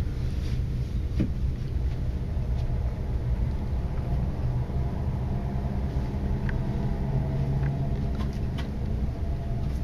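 Steady low rumble, with a few light clicks about a second in and again in the later part.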